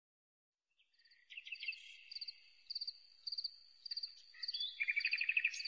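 Crickets chirping: short, high, trilled chirps repeating about every two-thirds of a second, with a lower chirping beneath, starting about a second in.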